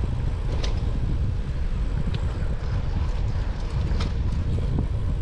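Wind buffeting the microphone of a camera on a moving bicycle: a steady low rumble. A few light clicks come through about two-thirds of a second, two seconds and four seconds in.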